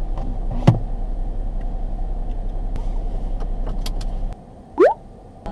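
Steady low rumble inside a parked car's cabin, with a sharp click about a second in as the sun visor is handled. The rumble cuts out near the end, and a short rising whistle-like tone follows.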